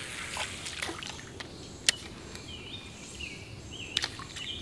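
A small bird chirping several times in short rising-and-falling notes over a faint steady outdoor background. Two sharp clicks, about two seconds apart, are the loudest sounds.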